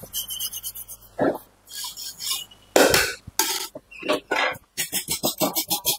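Hand scrubbing and scraping on metal motorcycle engine parts during cleaning and paint removal: short, sharp strokes, a few at first, then quick and regular at about four a second in the second half.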